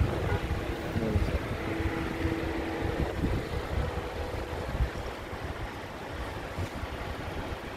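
Wind buffeting the microphone: an uneven low rumble that rises and falls in gusts, with a faint steady hum in the first few seconds.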